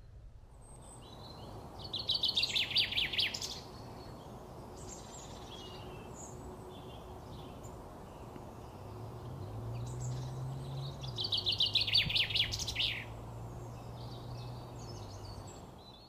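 Male common chaffinch singing two song phrases about nine seconds apart. Each is a quick run of repeated notes lasting about a second and a half and ending in a short flourish. A low steady hum joins in the background about nine seconds in.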